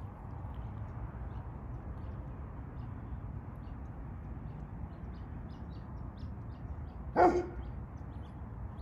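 A dog barks once, a single short loud bark about seven seconds in, over a steady low background rumble.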